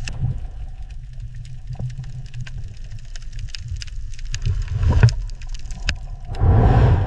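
Underwater ambience: a steady low rumble with scattered clicks and crackles, swelling louder twice, about five seconds in and again near the end.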